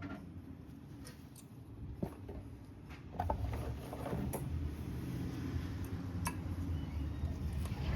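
Scattered light metallic clicks and clinks of brake parts and hand tools being handled during a front brake pad and rotor job. A steady low rumble comes in about three seconds in and becomes the loudest sound.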